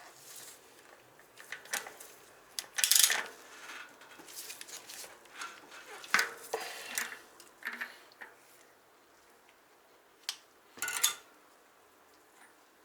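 Irregular metallic knocks and clinks of a steel socket and tools on a Cycle Design rear bicycle hub as a new cartridge bearing is driven in through its outer race, about ten strikes with the loudest around three seconds and eleven seconds in.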